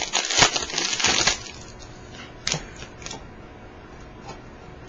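Crinkling and crackling of a trading-card pack wrapper being handled, dense for about a second and a half, then a few faint clicks of cards being handled.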